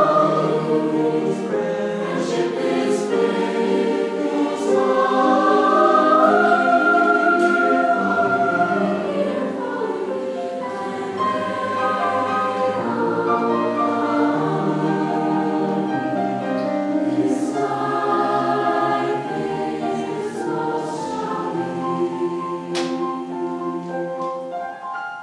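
Concert choir singing in harmony, with several voice parts moving through held chords; the singing grows quieter near the end.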